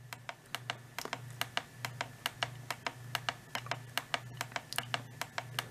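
Rapid light clicking, about four clicks a second, over a faint low hum that pulses about twice a second.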